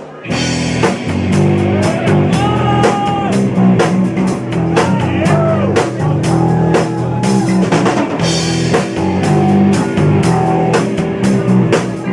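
Rock band playing live, with drum kit, bass and electric guitar. The music kicks in all at once right at the start and runs on with a steady drum beat.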